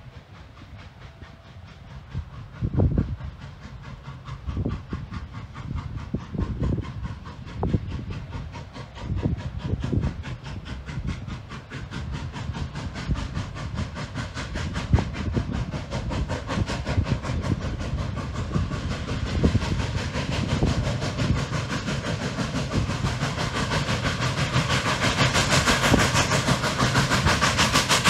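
Norfolk & Western 611, a J-class 4-8-4 steam locomotive, under power and drawing near: a steady run of exhaust chuffs with steam hiss, growing louder throughout. Heavier low thumps stand out in the first half.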